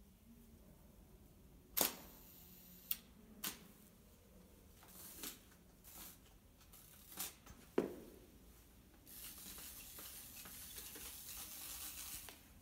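A camera shutter clicking several times at irregular intervals, sharp single clicks, then a few seconds of steady hiss near the end.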